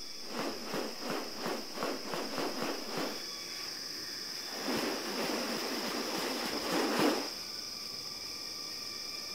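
Rainforest ambience with a steady high insect drone, over which come a run of short rasping pulses, about three a second, in the first three seconds, then a longer rasping rush that builds to its loudest and stops about seven seconds in.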